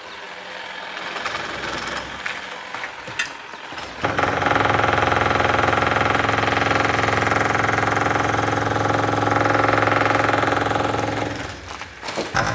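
Concrete cutting saw: quieter mechanical rattling and knocks for about four seconds, then a loud, steady run at a constant pitch for about seven seconds that drops off near the end.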